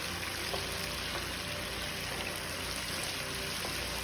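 Garlic sauce bubbling and sizzling steadily in a frying pan as it reduces, with a wooden spoon stirring through it.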